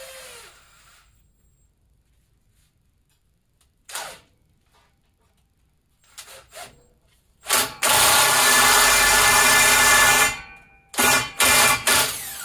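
Corded electric drill driving a flaring tool in the end of 3-inch steel exhaust tubing, working the pipe end outward. It runs in short bursts, with one long loud run of about three seconds in the middle. Near the end the motor winds down with a falling whine.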